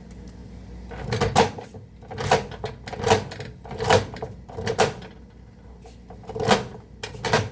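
A series of sharp knocks, about one a second, sometimes two close together.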